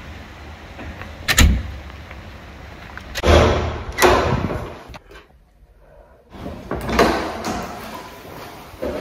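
Door of a public toilet booth being handled as someone goes in. There is a sharp knock about one and a half seconds in, a louder run of knocks and thuds around three to four seconds, and more thuds about seven seconds in.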